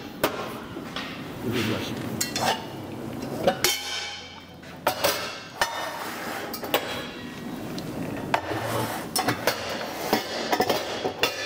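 Metal pots and pans being put away: irregular clanks and knocks of cookware set down against shelves and each other, with a short ringing clang about four seconds in.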